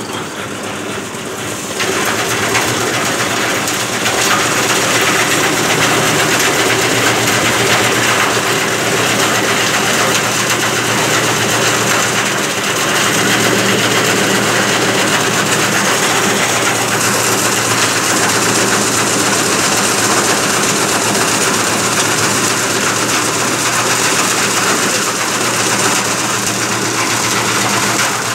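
Paras 3 HP single-phase electric chaff cutter running, its blade wheel chopping dry fodder stalks fed into it in a loud, continuous chopping racket over the machine's steady hum. The chopping starts about two seconds in, when the stalks reach the blades.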